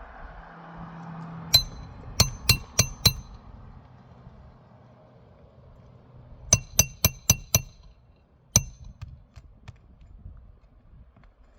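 Hammer striking a metal shingle-repair nailing tool to drive a roofing nail under a shingle: two quick series of about five ringing metallic taps, then a single one more.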